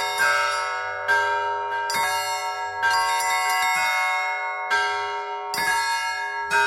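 Russian Orthodox church bells rung by hand: several bells struck in a steady rhythm, about one stroke a second, their tones ringing on and overlapping between strokes.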